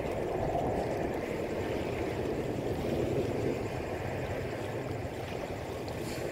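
Steady wind buffeting the microphone over open water, mixed with a faint wash of water, with no distinct events.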